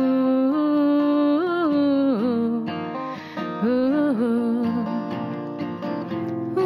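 Live acoustic song: a steel-string acoustic guitar accompanying a woman singing long held notes that slide between pitches.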